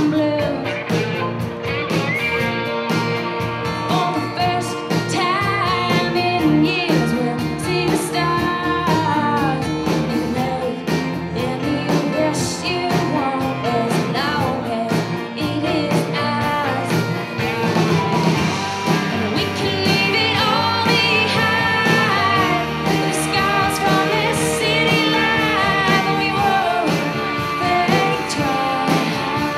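Live band playing a song: a woman singing over acoustic guitars and a drum kit.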